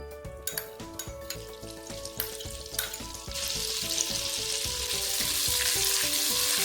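Butter sizzling as it melts in hot oil in a frying pan. The sizzle starts about three seconds in, after a few light clicks, and builds a little.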